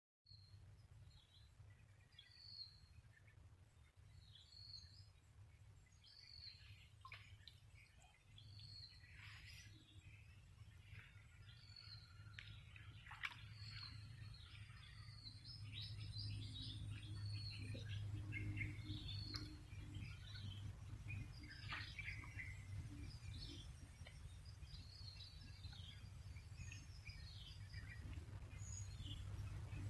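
Birds chirping, many short high calls repeating throughout, over a faint steady low hum.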